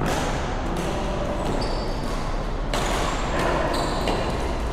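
Badminton being played in a large echoing hall: a few sharp racket-on-shuttlecock hits at uneven intervals over a steady hall noise, with brief high squeaks between them.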